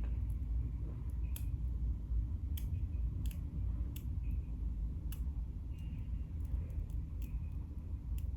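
Scissors snipping through wig lace: short, sharp snips at irregular intervals, roughly one every second, over a steady low rumble.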